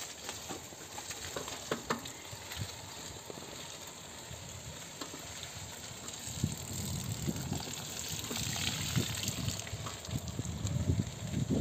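Bicycle tyres rolling over a wet concrete deck, a steady wet hiss, with scattered small clicks and low buffeting on the microphone that grows over the second half.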